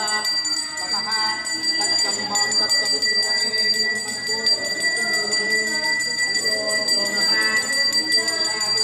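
A priest's brass hand bell rung continuously in worship, a steady high ringing, with voices over it.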